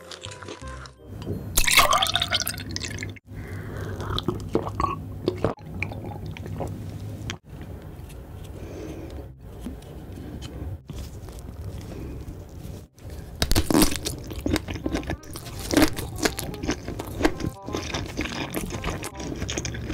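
Close-miked ASMR eating sounds: chewing a mouthful of crusty bread, then slurping juice from a glass bowl, over steady background music.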